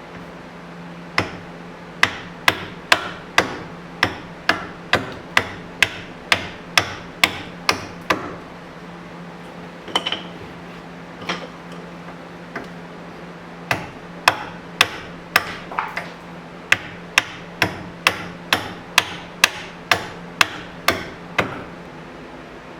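Hammer blows struck in a steady rhythm of about two a second, in two long runs with a few scattered strikes between them, over a steady low hum.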